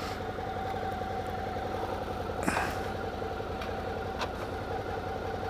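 Suzuki V-Strom 650's 645 cc V-twin engine running steadily at idle, with one brief, sharp sound about halfway through.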